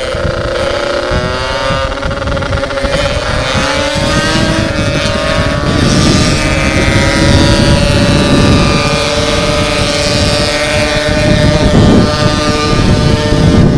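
Yamaha RX-King two-stroke single with a bored-out aftermarket exhaust, pulling hard under way: the engine note climbs steadily for several seconds, then holds at high revs near top speed. Wind buffets the microphone, growing stronger in the second half.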